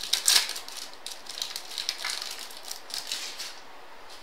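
Plastic wrapper of a baseball trading card pack crinkling as it is torn open: a run of quick, dense crackles that stops about three and a half seconds in.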